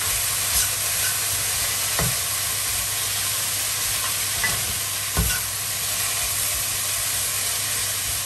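Sliced onions sizzling and frying in a nonstick (coated) pan, with a few knocks of a fork against the pan as they are turned and pulled apart, the loudest about five seconds in.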